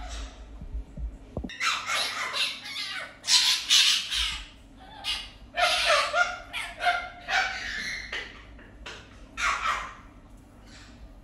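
Fennec fox giving a run of harsh, raspy squawking cries in short bursts. They start about a second and a half in, are loudest a few seconds in, and trail off near the end.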